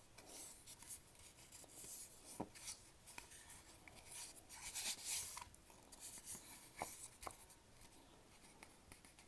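Faint rustling and rubbing as hands handle a wooden cigar box and its packaging, with a few light clicks and taps. It settles down near the end.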